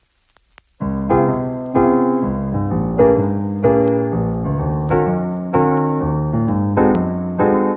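Background music: a slow run of struck chords, each ringing on until the next, starting just under a second in.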